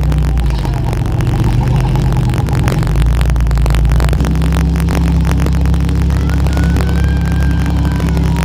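Demolition derby car engine running steadily, its pitch shifting about three and four seconds in, heard through a wet GoPro microphone that adds constant crackling static.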